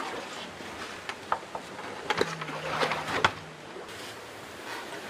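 Clicks and knocks of hands and tools working on a racing yacht's keel-box cover plate, a handful of sharp taps between one and three seconds in, with a brief low hum about two seconds in.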